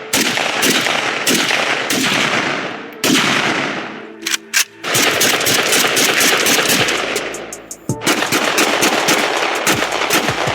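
Gunfire: a string of single shots about two-thirds of a second apart, each with a long echoing tail, then from about halfway through rapid strings of many shots a second, like automatic fire.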